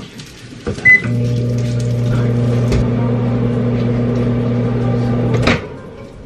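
Over-the-range microwave oven: a short keypad beep, then the oven running with a steady low hum for about four and a half seconds, ending with a clunk as its door is opened.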